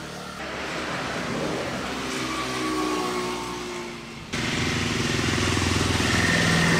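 Motor vehicle engine noise, steady with a low hum. It jumps suddenly louder about four seconds in and cuts off abruptly at the end.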